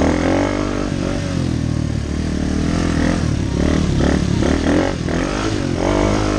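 Pit bike engine revving up and down while riding a dirt trail, its pitch rising and falling every second or so with the throttle.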